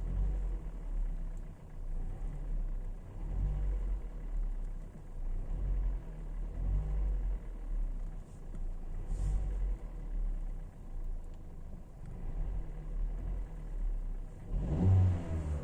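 Kia Ceed's G4FA 1.4-litre four-cylinder petrol engine running warm, a low uneven rumble, with a brief rev near the end. It is recorded for a rattling noise that the owner hears from the engine when warm.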